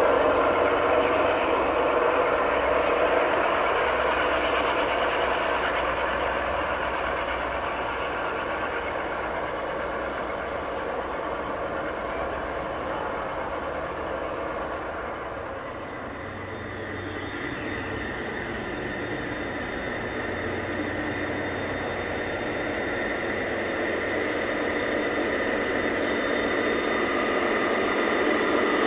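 G-scale model train cars rolling over the track with a steady rattle that fades as the last car goes by. Then a train of G-scale Santa Fe diesel locomotives runs past, its rolling noise carrying a thin steady whine and growing louder toward the end.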